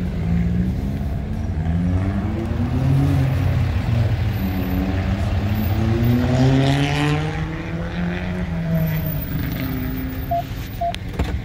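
Car engine running while driving slowly. Its pitch climbs and drops several times, with the highest and loudest rise around the middle.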